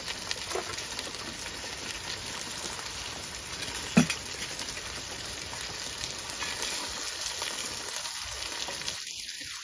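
Salmon frying in a pan over a Jetboil gas camping stove: a steady sizzling hiss. A single knock about four seconds in.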